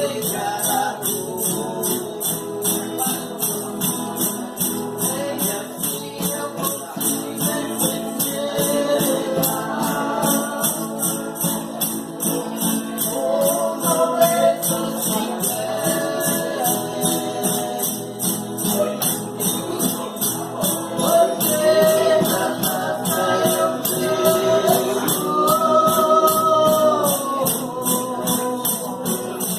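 Voices singing a folk song over a tambourine kept going in a steady, even beat of jingles.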